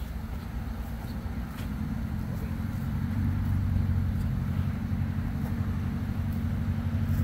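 Low, steady rumble of road traffic, swelling somewhat about three seconds in.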